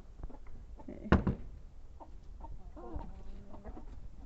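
Domestic chickens clucking softly among small scratching clicks, with one sharp knock about a second in.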